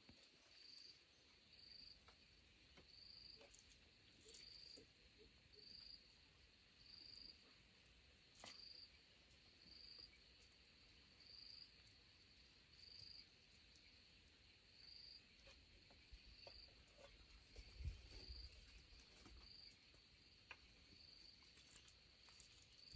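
A cricket chirping faintly: short chirps at one steady high pitch, a little over a second apart. A faint low rumble comes in about two-thirds of the way through.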